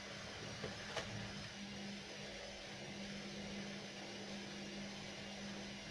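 Steady low mechanical hum, with two faint clicks within the first second.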